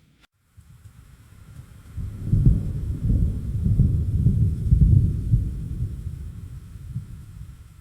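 A deep rolling thunder rumble that swells about two seconds in and fades away near the end, after a brief drop-out at the very start.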